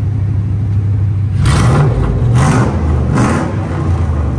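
Ford F-150 FX4 pickup's engine idling, then revved in three short blips of the throttle, starting about a second and a half in and under a second apart.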